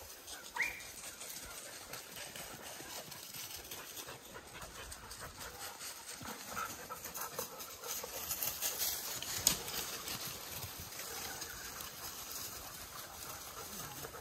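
Dog giving one short whine about half a second in, then sharp crackling and snapping, like paws through dry undergrowth, around the middle.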